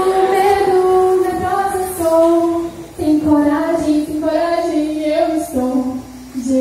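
A woman's solo voice singing long held notes into a microphone, the pitch stepping from note to note, with short breaks about three and six seconds in.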